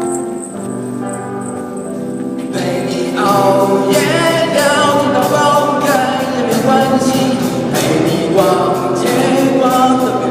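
A song performed with singing voices, a group sound: held chords at first, then about two and a half seconds in it grows louder and fuller, with moving vocal lines over a steady beat.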